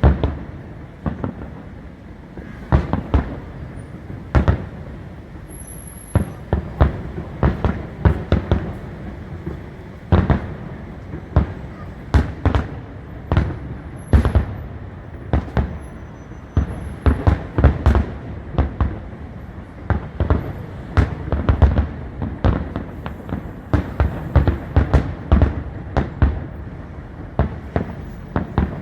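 Fireworks display: a rapid, irregular series of shell bursts and bangs with crackling between them, coming thicker in the second half.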